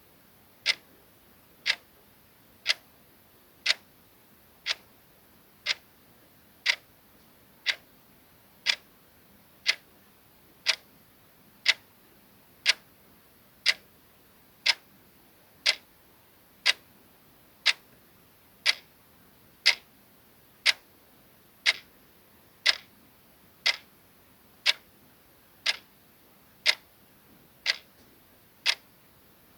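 Soft clock-ticking sound effect: a clock ticking steadily once a second, each tick a short crisp click.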